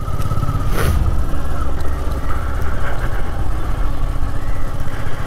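A small commuter motorcycle's engine running steadily at low speed while the bike is ridden over a dirt field, with a short burst of noise about a second in.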